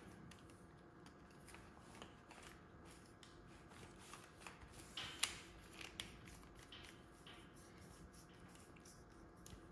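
Faint handling of a garden hose and a plastic Hozelock hose connector: small clicks and rubbing as the hose end is pushed in and the connector is screwed on. The sharpest click comes about five seconds in.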